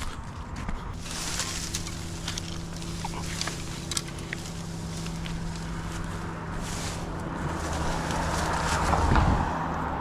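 Mini skid steer's engine running steadily, with scattered clanks and knocks; it grows louder toward the end.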